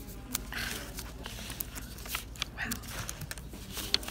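A sheet of paper handled by fingers on a desk, rustling and crinkling in many short, scattered ticks and scrapes.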